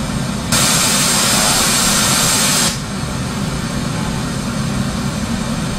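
Test noise from a phone signal-generator app played through a mixer. Pink noise, a steady hiss weighted toward the low end, switches about half a second in to brighter, louder white noise for about two seconds, then goes back to pink noise.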